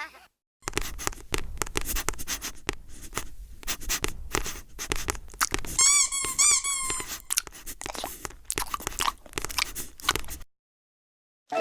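A rapid run of cartoon crunching and clicking sound effects, with three quick squeaky chirps about six seconds in; it cuts off suddenly near the end.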